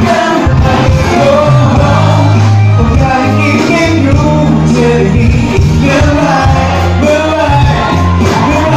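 Loud live pop band music with a singer's voice over it, bass notes held and changing under the melody, picked up from inside the audience.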